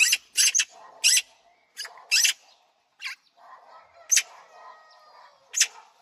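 Young magpies giving short, harsh begging calls while being fed, about ten of them spread over a few seconds.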